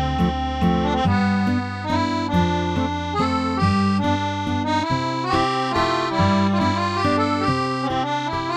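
Instrumental background music: a melody over a bass line stepping from note to note.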